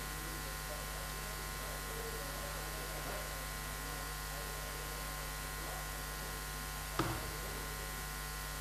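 Steady electrical mains hum with a buzzy edge, and one short knock about seven seconds in.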